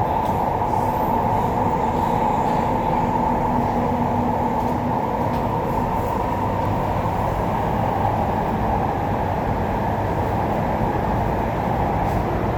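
MTR East Rail Line train running at speed, a steady rail noise. A faint steady tone shows through for a few seconds, about two seconds in.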